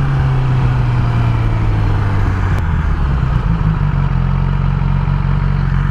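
Yamaha R6 inline-four engine running while the motorcycle rides at low speed, its pitch easing down over the first few seconds and then holding steady, with wind noise over the microphone. The engine runs jerky and unstable at low speed, which the owner suspects comes from a failing ignition coil or dirty injectors.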